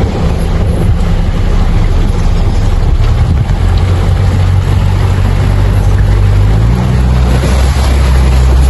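Amphibious all-terrain vehicle's engine running loudly as it drives along, its note shifting about three and a half seconds in and again near seven seconds.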